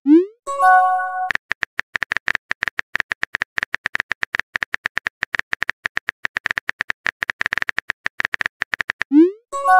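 Rapid, even clicking of a phone keyboard typing sound effect. At the start and again near the end, a short rising swoosh and a brief chime mark a chat message being sent.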